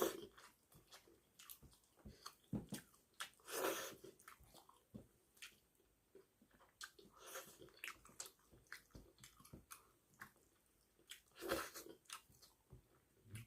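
Close mouth sounds of someone eating rice with fish curry: wet chewing and lip smacks in many short clicks, with two louder wet slurping sounds, one a few seconds in and one near the end.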